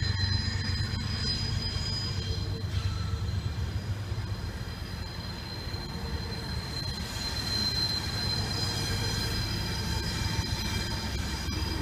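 MBTA commuter rail train of bilevel coaches rolling past with a low rumble and a high, steady wheel squeal. The squeal weakens a few seconds in and comes back stronger after the middle.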